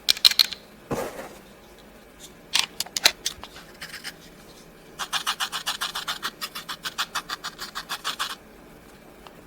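Close handling sounds: a few sharp clicks and scratches, then a quick, even run of scraping ticks, about nine a second, lasting about three seconds.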